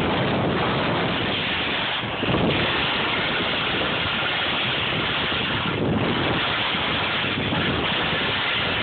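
Steady loud rush of wind over the microphone during a fast downhill ski run, mixed with skis hissing and scraping over the snow, the noise dipping and swelling slightly with the turns.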